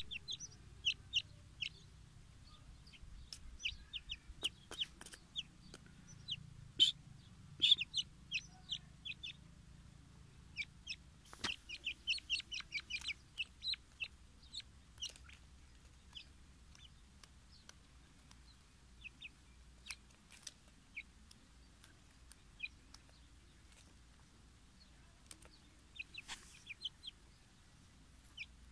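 A young grey francolin calling in short, high peeps, many in quick runs through the first half, fewer for a while, then another run near the end.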